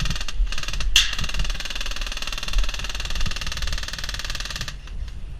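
Airsoft electric gun firing on full auto: a short burst early on, then one sustained burst starting about a second in and lasting nearly four seconds, a rapid mechanical rattle that stops abruptly near the end.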